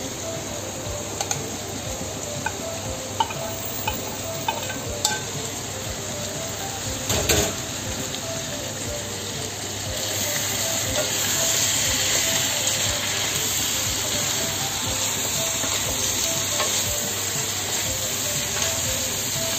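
Wok of pork offal and vegetables sizzling as bell pepper strips are tipped in and stirred through with a wooden spoon, with scrapes and a sharp knock about seven seconds in. The sizzle grows louder about ten seconds in.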